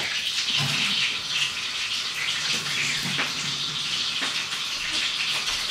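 Kitchen tap running, a steady stream of water splashing into the sink.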